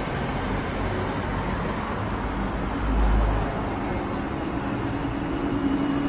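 Steady city-street traffic noise from passing vehicles, with a low rumble swelling about three seconds in and a steady engine drone coming in near the end.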